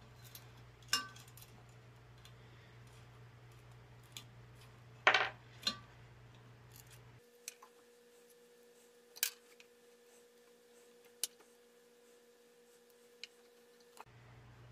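Scattered clicks, taps and rustles as old cloth-insulated lamp wires are handled and tugged inside a metal lamp base. The loudest knock comes about five seconds in.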